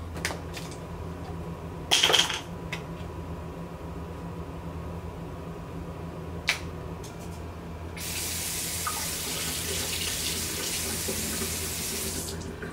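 Bathroom sink faucet turned on, water running into the basin for the last four seconds or so. Before it, a few small clicks and one louder rustle about two seconds in, over a low steady hum.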